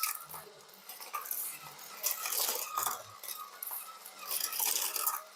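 Die-cast metal toy cars clinking and rattling, a run of light, irregular clicks and scrapes.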